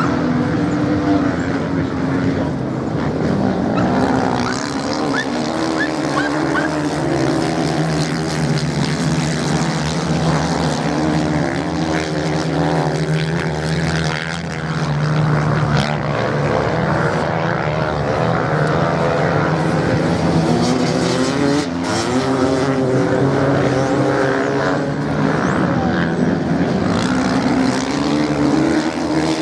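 Several motocross bike engines running hard and overlapping, their pitch rising and falling as the bikes accelerate and slow around the course.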